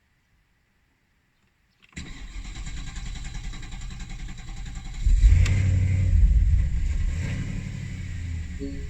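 A 2010 Porsche Panamera 4S's 4.8-litre V8 cranking on the starter for about three seconds before it fires, then flaring up loudly and settling back toward idle. It is a cold start with a delayed first firing; a shop's diagnostic reports a high-pressure fuel pump fault, cause unknown.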